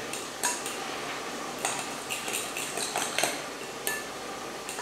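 A metal utensil stirring a thick cream-cheese and parsley mixture in a glass mixing bowl, with scattered clinks and scrapes against the glass.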